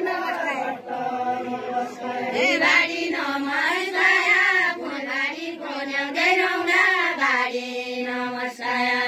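Voices singing a chant-like melody, with long held notes that bend up and down in pitch.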